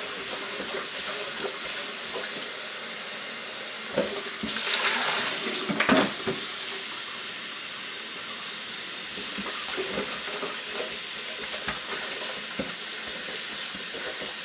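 Kitchen faucet running a steady stream into a paint can of rinse water while a paintbrush is worked in it. A few knocks and splashes come about four to six seconds in.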